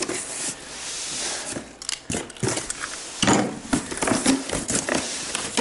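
A cardboard shipping box and its foam- and plastic-packed contents being handled: rustling and scraping with a few light knocks.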